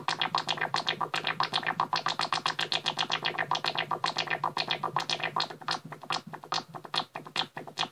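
Behringer 2600 synthesizer playing a fast, uneven rhythm of short blips over a steady low tone. Its AR envelope is being retriggered both by the LFO and by a preamp-boosted square wave fed into the gate input, and the two mix into a combined rhythm.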